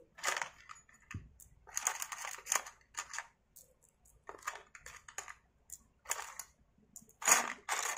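Steel bolts and small metal chainsaw parts clinking and rattling against each other in a plastic tub as fingers rummage through them, in a string of short, irregular clatters, the loudest near the end.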